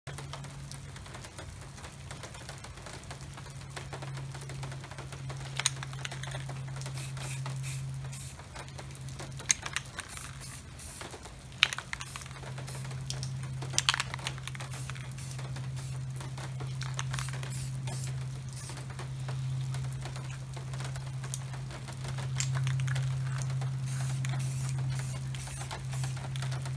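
Aerosol spray paint can hissing in short bursts, with a few sharp clicks, over a steady low hum.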